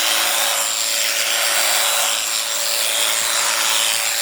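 Electric sheep shears running steadily with a constant whine, the cutter rasping through the fleece.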